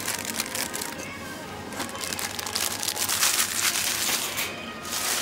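Irregular crunching and crinkling of food and wrappers as someone eats quickly, densest a few seconds in, over light background music.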